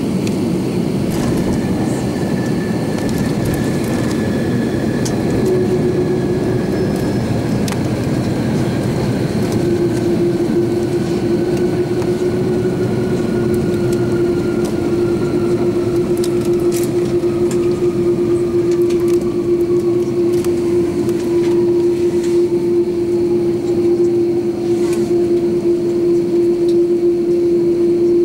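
Airbus A330-300 cabin noise while taxiing after landing: the steady rumble of its General Electric CF6 engines with a steady hum, a fainter whine that slowly falls in pitch, and scattered light rattles.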